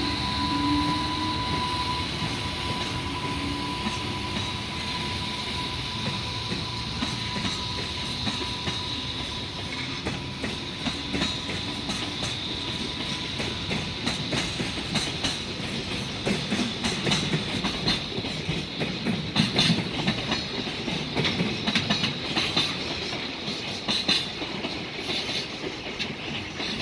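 A freight train hauled by a JR Freight EH500 electric locomotive rolls past with a steady rumble. A high steady tone fades over the first several seconds. Then the container wagons' wheels clack over the rail joints, the clacks growing louder and more frequent in the second half.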